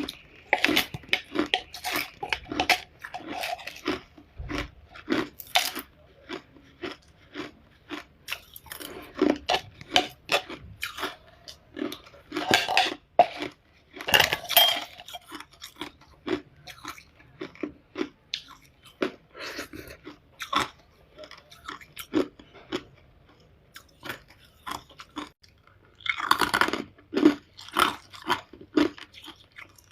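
Hard ice being bitten and chewed close to the microphone: irregular sharp crunches and crackles, with a few louder bites, including one near the end.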